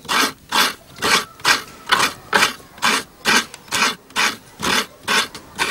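Coconut half scraped by hand against the blade of a wooden coconut grater stool, making a steady run of rasping strokes, a little over two a second.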